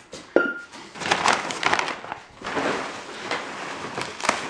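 Packaging material crinkling and rustling in bursts as it is pulled and handled, with a sharp knock about a third of a second in and another near the end.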